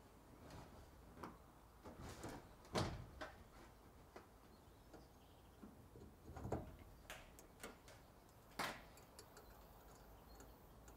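Faint, scattered clicks and knocks of a metal shower hose and its wall fittings being handled and fitted against corrugated iron, with three louder knocks about three, six and a half and nearly nine seconds in.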